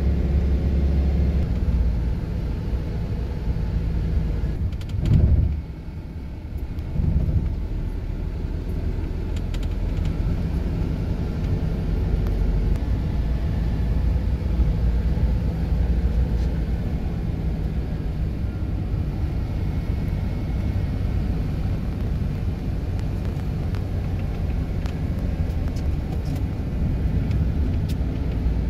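Car driving on a winter road: a steady low rumble of engine and tyres, with a brief louder swell about five seconds in and a smaller one about two seconds later.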